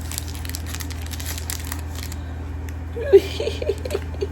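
Plastic wrapper of a mochi snack crinkling as it is handled and opened, for about two seconds, then short voice sounds about three seconds in, over a steady low hum.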